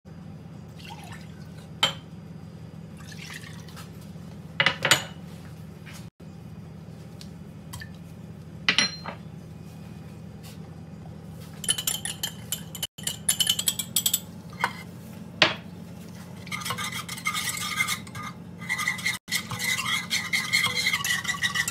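A wire whisk clinking and scraping quickly against a metal pot as milk is whisked, starting about halfway in and growing dense near the end. Before it come scattered single clinks and taps of kitchen utensils, and a steady low hum runs underneath.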